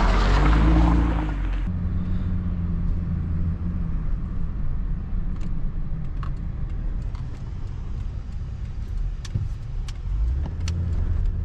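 Car engine and road noise heard from inside the cabin while driving: a steady low rumble, louder for the first couple of seconds, then settling to an even drone with a few faint clicks.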